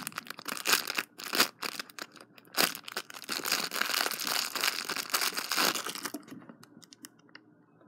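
Clear plastic packaging crinkling and crackling as it is pulled open by hand, with many sharp crackles; it thins to a few faint crackles about six seconds in.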